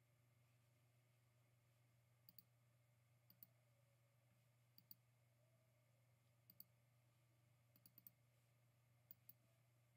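Computer mouse button clicks, mostly in quick press-and-release pairs, about six times at irregular intervals over a faint steady low hum.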